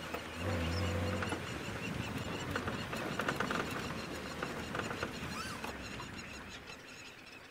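A squirrel chattering in alarm with rapid, repeated calls, over an open game-drive vehicle running along a dirt track; the engine is briefly louder about half a second in.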